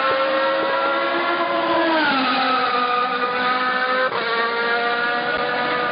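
Race car engine running at high revs. Its pitch climbs slowly, glides down about two seconds in, then climbs again and drops abruptly just after four seconds in, like a gear change.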